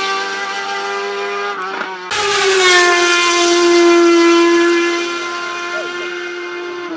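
Hill-climb race car engine running hard at high revs with a steady, high-pitched note. After an abrupt break about two seconds in, the revs fall and then hold steady again.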